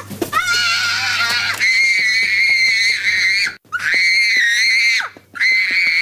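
A young child screaming in a tantrum: long, high-pitched screams one after another, broken by short breaths about three and a half and five seconds in.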